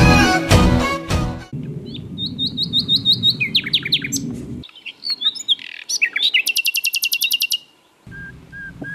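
A short burst of intro music, then a common nightingale singing: a varied song of quick repeated notes and sharp glides, a fast trill about two-thirds of the way in, and a row of even whistles near the end.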